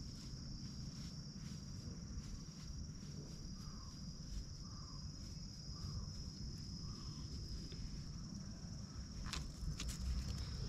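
Insects droning steadily at a high pitch, over a low rumble. There are a few sharp clicks about nine seconds in.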